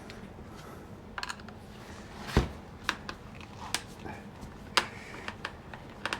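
Scattered sharp clicks and taps of small tools and metal parts being handled while a chainsaw carburetor is taken off, the loudest knock about two and a half seconds in.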